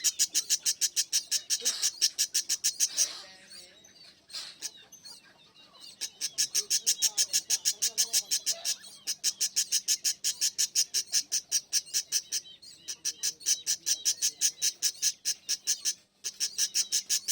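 Small pet parrots chirping in a fast, even run of high chirps, about seven a second, broken by a few short pauses.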